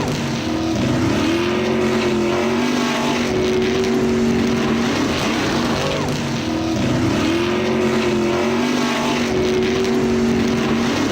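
Car engine sound effect running at high revs, a steady engine note whose pitch dips and climbs back up a few times, as in gear changes.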